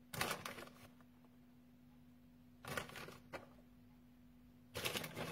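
Three short bursts of rustling or handling noise, about a second in, near the middle and near the end, over a faint steady low hum.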